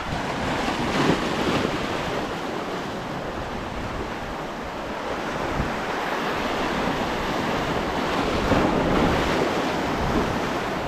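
Sea surf washing and breaking over a rocky shoreline: a steady rush of water and foam that swells a little about a second in and again near the end.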